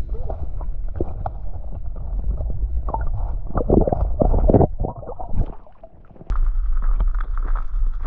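Muffled underwater sound from a submerged camera: water sloshing and bubbling against the housing, with small knocks, louder for about a second as a dog's snout pushes up against it. About six seconds in the sound turns to steady wind noise on the microphone.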